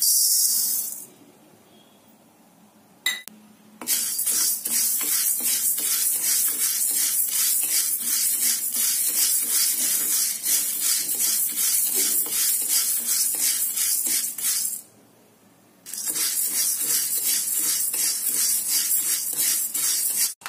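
Whole black urad dal poured into a dry kadai, with a short rushing rattle, then dry-roasted by stirring with a wooden spatula. The stirring makes a steady, fast scraping rattle of the lentils against the pan, broken once near the end by a pause of about a second.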